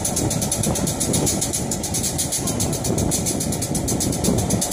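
CP Rail diesel locomotive's engine running steadily with a fast, even pulsing while the locomotive is turned slowly on a hand-pushed turntable.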